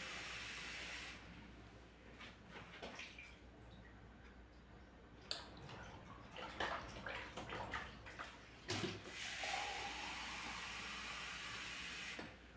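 Kitchen sink tap running, shut off about a second in; then scattered clinks and knocks of dishwashing, and the tap runs again for about three seconds near the end before being shut off.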